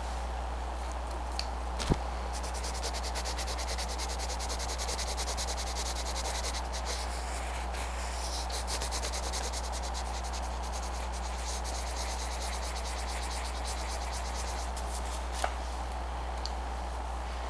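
A colored pencil shading on paper in quick, closely spaced strokes, a steady scratchy rubbing. A sharp tap sounds about two seconds in.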